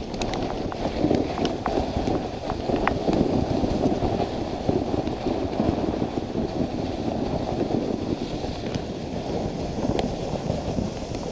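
Dog sled underway on a snow trail: a steady scraping hiss of the runners sliding over packed snow, with a few light clicks, several in the first few seconds and one near the end.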